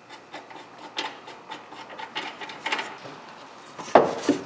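Light metallic clicks and rattles of a nut being threaded by hand onto a rear shock absorber's mounting bolt, then a louder knock about four seconds in.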